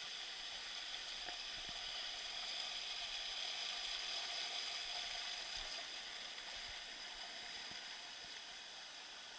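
Steady rush of running water, swelling a little toward the middle and easing off near the end.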